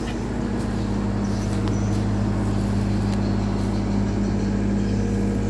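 Komatsu PC130 hydraulic excavator's diesel engine running steadily with a constant low hum.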